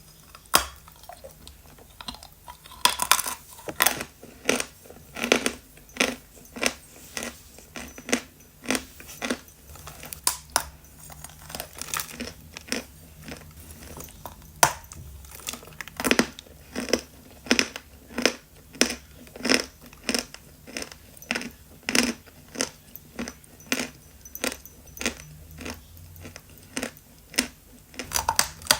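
Medium-hard dry chalk of the 'Khrapovsky' variety being chewed: dull crunches in a steady rhythm, a little under two a second.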